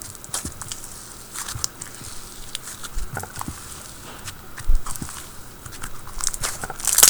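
Clear glue slime with snow fizz being squished and poked by hand, giving irregular crackly clicks and small pops that get louder and more frequent near the end.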